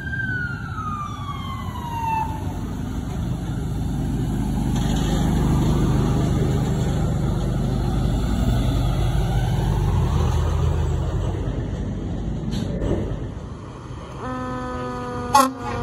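Fire trucks driving past: a siren falls in pitch and fades out in the first two seconds, then the heavy trucks' engines rumble steadily as they go by. About 14 seconds in, a horn starts sounding in stepped tones.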